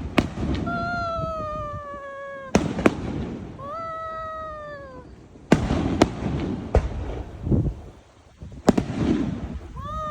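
Fireworks going off: sharp bangs every one to three seconds, with three long wails falling in pitch between them.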